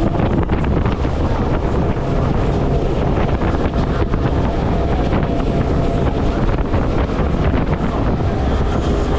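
Heavy wind buffeting the microphone over the steady drone of a Sea Pro 262 boat's Suzuki outboard running at speed, with water rushing past the hull.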